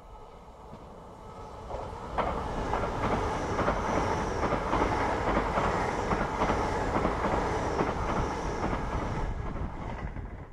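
Great Western Railway Class 800 bi-mode express passing through the station at speed. A rush of wheels on rail builds over the first two seconds and stays loud, full of rapid clicks from the wheels running over the track, then falls away at the end.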